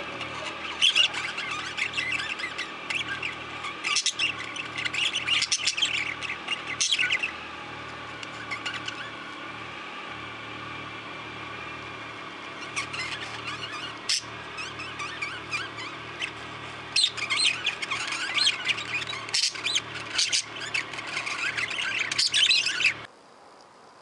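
A flock of budgerigars chattering and warbling, with louder spells of sharp chirps and squawks. The chatter eases for a few seconds in the middle and cuts off suddenly about a second before the end.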